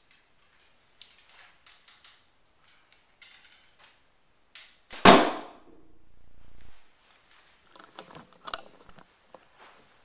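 An arrow shot from a homemade PVC-and-fiberglass bow hits a cardboard box about five seconds in: one loud smack with a tail about a second and a half long. Faint handling clicks and rustles come before it, and more rustling near the end.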